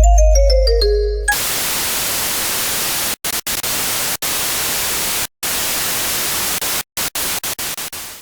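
A short falling run of musical notes over a deep bass tone, then loud steady white-noise static, like a detuned TV. The static breaks off abruptly several times and then cuts out suddenly.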